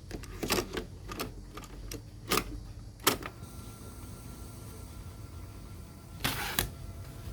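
Sharp mechanical clicks and knocks, about five in the first three seconds, from handling a Sony CFS-1065S radio cassette player, then a brief rush of noise a little past six seconds in.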